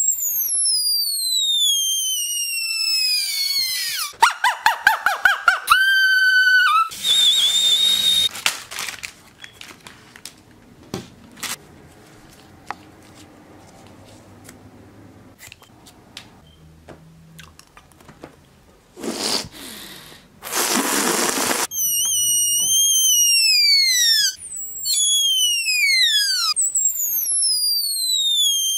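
A string of shrill whistles, each gliding steeply down in pitch, several in a row at the start and again near the end. Between them come a pulsing tone, a steady high tone, and bursts of hissing noise, with a quieter stretch in the middle.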